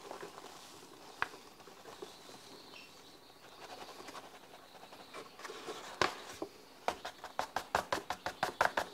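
Paper flour bag rustling as flour pours into a stainless steel mixer bowl. Over the last two seconds the bag is shaken, crackling about five times a second and getting louder, to empty out the last of the flour.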